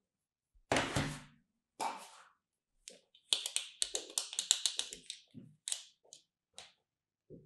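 Hands handling plastic sand molds over kinetic sand: a thunk with a crumbly rustle of sand about a second in, then a quick run of fingernail taps and clicks on a hollow plastic mold, trailing off into a few single clicks.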